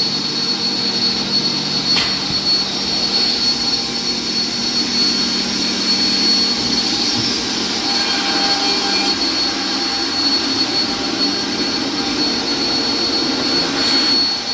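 IMA Novimat edge bander running steadily: a constant machine whir with a thin high whine over it. A single sharp click sounds about two seconds in.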